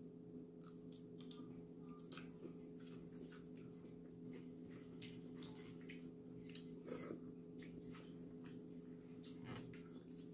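Faint chewing and mouth sounds of someone eating shrimp, with many small scattered clicks and crackles as shrimp shells are peeled by hand. A steady low hum runs underneath.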